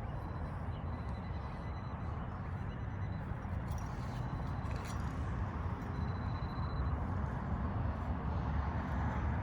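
Steady low outdoor rumble of background noise, with a faint thin high tone near the start and again about six seconds in.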